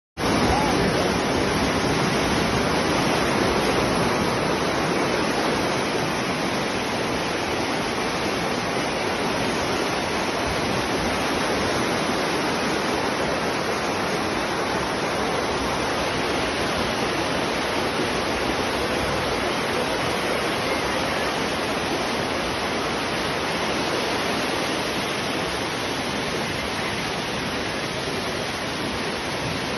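Rushing floodwater from a flash flood: a loud, steady rush of water, a little louder in the first few seconds.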